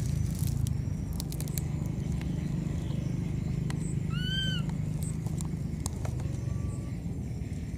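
A baby monkey gives one short cry about four seconds in, its pitch rising and then falling. A steady low rumble runs underneath, with a few faint clicks near the start.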